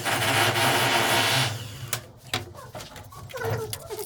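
A small motor running steadily with a low hum for about a second and a half, then cutting off, followed by scattered knocks and clicks.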